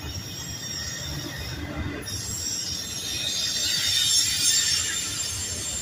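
Freight train of empty double-stack well cars rolling past, wheels rumbling on the rails. About two seconds in, a high steady wheel squeal sets in, loudest just past the middle and easing off near the end.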